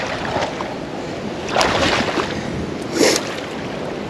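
Water sloshing and swishing as a person wades through shallow marsh water, with two louder surges of splashing, one in the middle and one about three seconds in.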